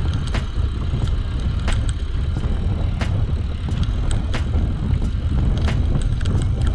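Mountain bike rolling over a rough dirt trail: a steady low rumble of wind and tyre noise, with irregular sharp knocks and rattles from the bike jolting on the ground.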